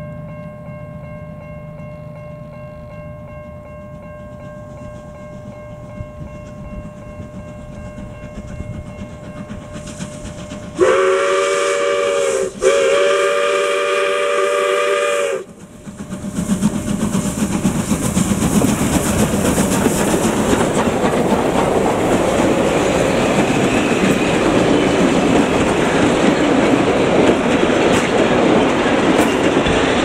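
Steam locomotive 621 'The Duke' approaching, quieter at first. About eleven seconds in it sounds two blasts on its chime steam whistle, a short one and then a longer one. The locomotive and its carriages then pass close with a loud, continuous rush.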